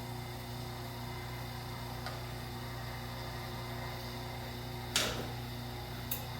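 Small electric wire-stripping machine running with a steady hum as 14-gauge Romex wire is fed through it. A sharp crack comes about five seconds in.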